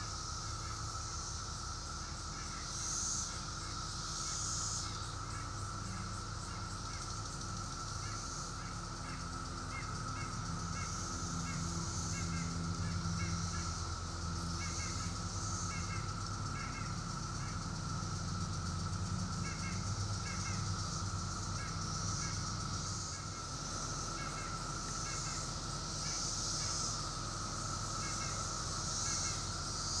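Steady, high drone of a cicada chorus, with birds chirping in short repeated notes and a low hum underneath.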